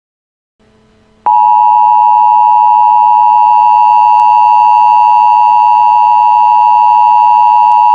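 Emergency Alert System attention signal: a loud, steady alarm tone that starts about a second in after faint hiss and holds without a break.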